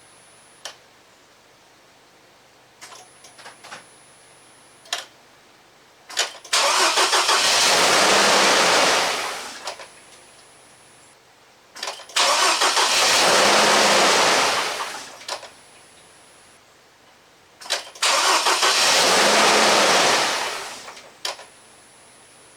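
2006 Hummer H3's 3.5 L five-cylinder engine cranked over by the starter three times, about three seconds each, without catching. Short sharp clicks come before and after each attempt.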